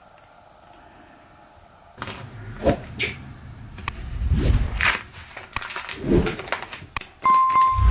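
Hands laying and pressing masking tape onto a wooden workbench: rustling, scattered clicks and dull knocks that start about two seconds in, with a short steady high tone near the end.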